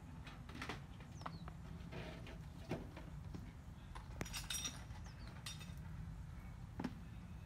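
Faint outdoor ambience: a steady low hum under scattered clinks and knocks, with a cluster of clinks a little past the middle. A bird gives a short falling chirp twice.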